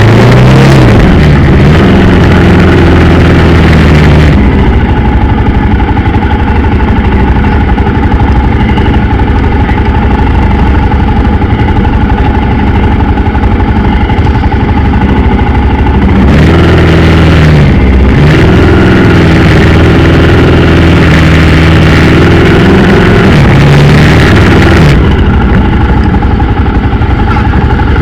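Motorcycle engine running under way, its pitch rising and falling with the throttle at the start and again in the second half, and holding steady for about ten seconds in between.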